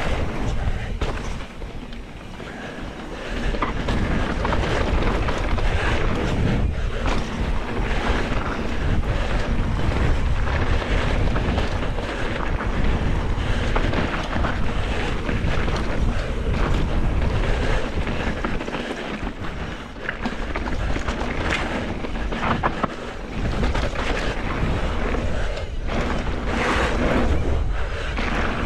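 Mountain bike riding fast down a dirt trail: wind buffeting a chest-mounted GoPro's microphone, over tyre noise and the bike's frequent rattles and knocks.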